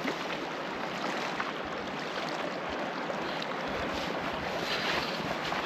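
Steady rushing wind, with gusts buffeting the microphone about four and five seconds in.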